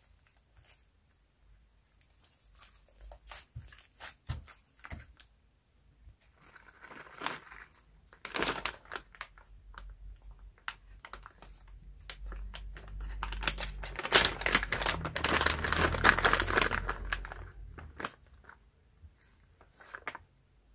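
Clear plastic zip-lock bag crinkling as it is handled, opened and rummaged through, with scattered soft crackles at first and a dense, louder stretch of crinkling in the second half.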